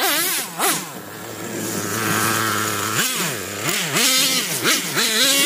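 Traxxas T-Maxx 3.3 nitro RC monster truck's small two-stroke glow engine revving up and down in quick blips, holding a steadier, higher pitch for a couple of seconds in the middle before blipping again.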